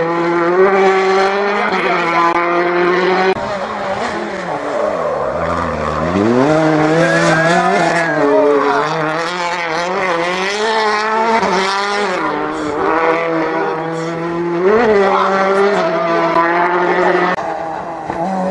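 Rally cars' engines at high revs as they pass on the stage, in back-to-back clips: the pitch holds steady, drops sharply and climbs again with gear changes and lifts.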